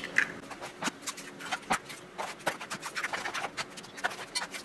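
Eggs being cracked one after another into a stainless steel mixing bowl: a run of sharp, irregular taps and eggshell cracks.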